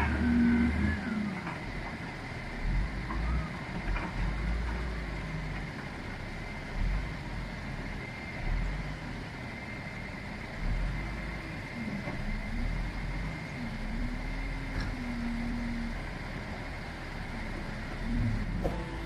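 Heavy diesel engine running with its revs rising and falling several times, over a steady high whine.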